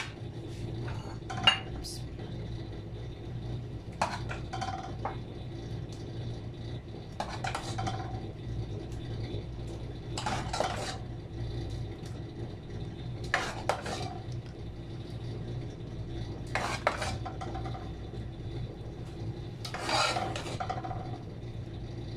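Steel ladle scraping and clinking against an aluminium pot as thick rice kheer is scooped out, one stroke every three seconds or so, over a steady low hum.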